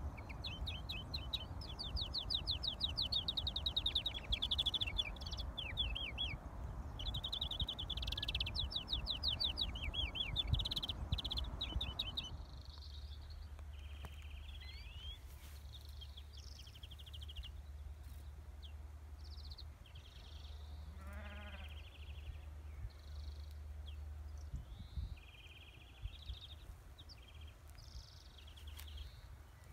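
Caged European greenfinch singing in the open, with repeated rolling trills and song phrases. For the first twelve seconds wind noise on the microphone runs under the song. After a cut, the song comes in shorter phrases over a low steady hum.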